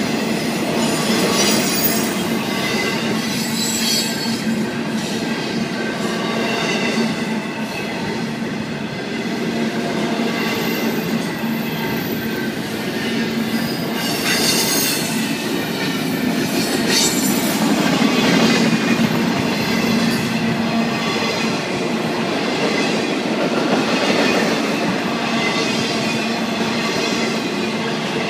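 Double-stack intermodal freight cars rolling steadily past: a continuous rumble and clatter of steel wheels on the rails, with brief high-pitched wheel squeals now and then.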